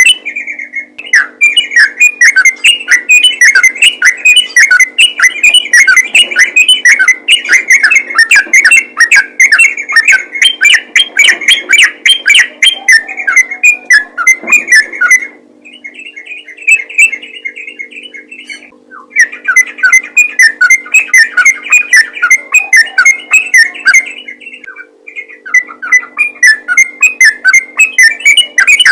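Yellow-vented bulbul (trucukan) singing: fast, continuous runs of bubbly chattering notes, played very loud and distorting. There are brief pauses a little past halfway.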